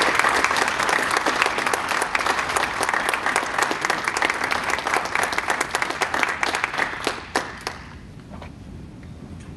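Audience applauding, the clapping thinning out and stopping about eight seconds in.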